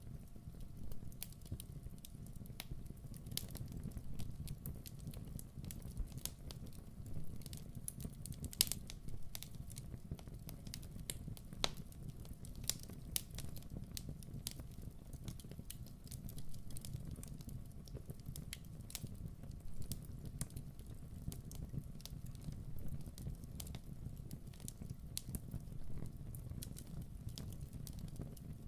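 Wood fire crackling in a fireplace: irregular sharp pops and snaps over a low steady rumble.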